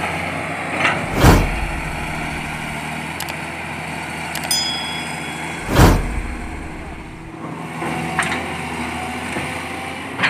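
Caterpillar 320C excavator's diesel engine running steadily at idle, with two loud, deep thumps a few seconds apart.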